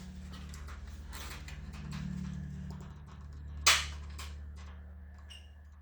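Parts being handled, with faint clicks and rubbing and one sharp knock a little past halfway through, over a steady low hum.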